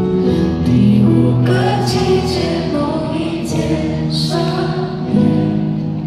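A female pop singer singing live into a microphone over instrumental accompaniment, amplified through the arena's sound system.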